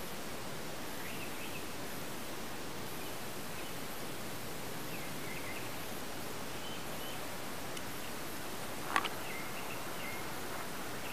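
Steady background hiss with faint, scattered bird chirps, and one sharp click about nine seconds in.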